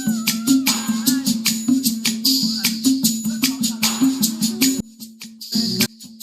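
Live band playing an instrumental passage, with a shaker rattling to a steady beat over a stepping low bass line. The music thins out briefly about five seconds in.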